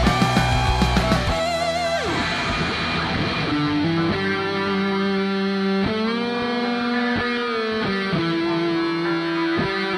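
Schecter electric guitar playing an improvised lead solo in E minor: sustained notes with wide vibrato, a falling slide about two seconds in, then long held notes bent up and down. A low accompaniment underneath drops out about a second in and comes back near the end.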